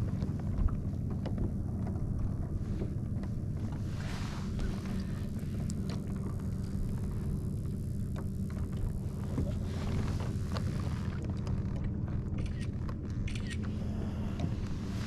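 Steady low rumble of wind and sea against the microphone on a kayak, with scattered small clicks and knocks from the fish and gear being handled.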